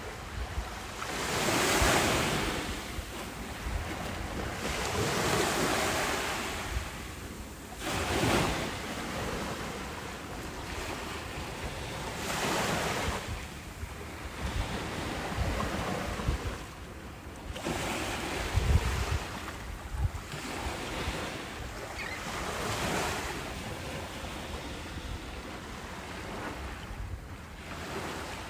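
Ocean waves breaking on a beach: surf rising and washing back in swells every few seconds.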